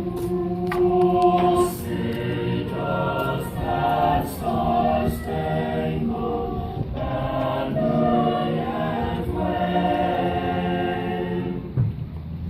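A choir of mixed voices singing an anthem in slow, held notes, each lasting a second or two.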